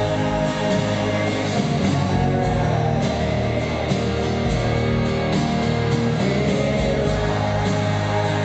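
Live rock band playing an unplugged set: guitar over drums, with a man singing.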